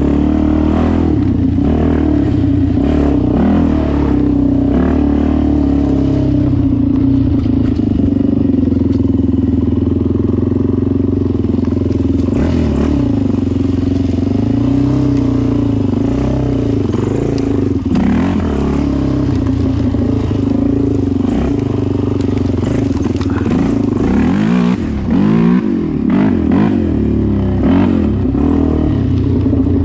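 Kawasaki sport quad's engine running as it is ridden along a dirt trail. The revs rise and fall with the throttle, with quicker rev swings in the last few seconds.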